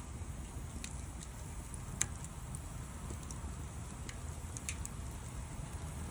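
Wood fire crackling: scattered sharp pops over a steady low rumble, with one louder pop about two seconds in.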